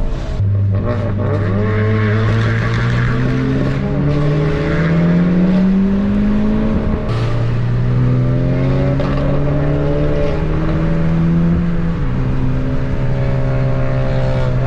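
Honda Civic Type R FK8's turbocharged four-cylinder, fitted with a catless downpipe and an E85 tune, accelerating hard under load. Its note climbs through a gear, drops at an upshift about halfway through, climbs again, and drops at a second upshift near the end.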